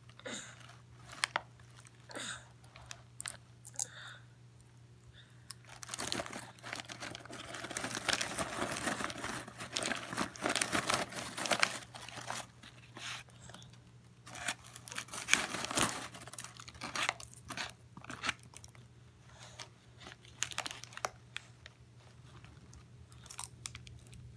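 A paper popcorn bag crinkling and rustling as small hands rummage in it, with crunchy chewing of popcorn. The rustling comes in scattered bursts and is densest for several seconds in the middle.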